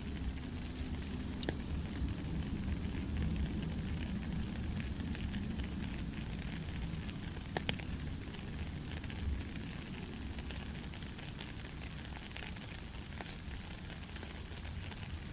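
Baby-sleep white-noise track: a steady even hiss over a low rumble, speckled with small crackles and a couple of sharper clicks.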